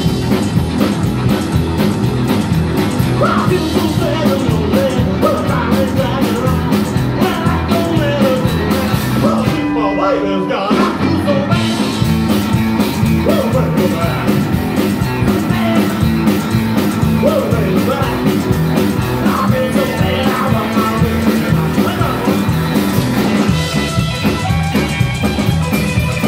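Rockabilly band playing live: a fast rock and roll number with a steady beat, with some singing.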